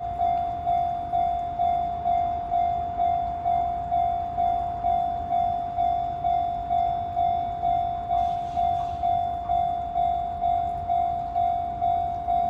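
Japanese level-crossing electronic warning bell ringing, one pitch struck about twice a second, each ding fading before the next: the signal that a train is approaching.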